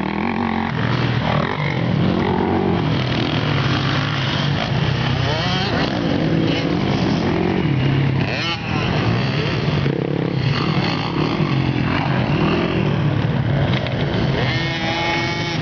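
Motor vehicle engine running steadily, its pitch rising and falling. About a second before the end a horn sounds briefly.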